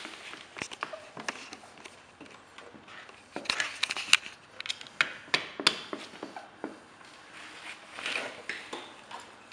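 Vinyl wrap film being worked onto a snowmobile's plastic nose by hand and squeegee: irregular short scrapes, taps and crinkles of the film. They come thickest from about a third to two thirds of the way through.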